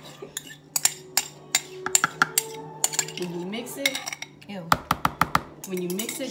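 Metal spoon clinking and scraping against a ceramic bowl as sauce is scooped out, a series of sharp clinks coming thicker about five seconds in.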